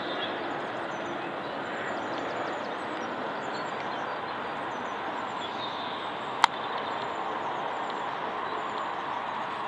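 Boeing 767 jet airliner passing overhead, a steady rushing engine noise that holds level throughout. A single sharp click cuts in about two-thirds of the way through.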